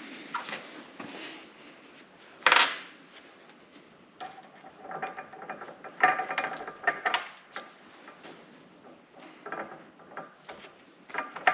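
Steel nuts, flat washers and lock washers clinking and scraping on a bolt as a nut is started by hand: irregular metallic clicks, some with a short ring, loudest about two and a half seconds in and in a cluster around six to seven seconds in.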